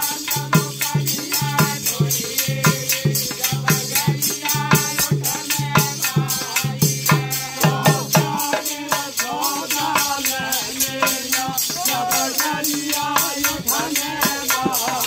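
Men singing a Hindi devotional bhajan, accompanied by jingling metal percussion that keeps a steady quick beat of about four strokes a second.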